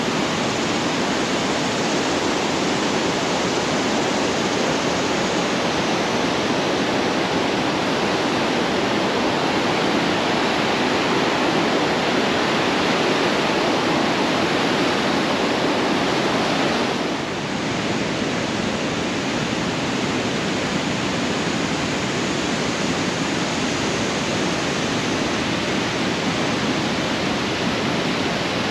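Loud, steady rush of the Niagara River's white-water rapids, with a brief dip in level a little past halfway.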